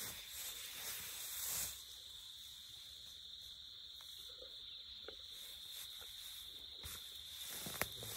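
Faint, steady high-pitched chirring of insects in grassland, with soft rustling in the grass during the first two seconds and a couple of small clicks near the end.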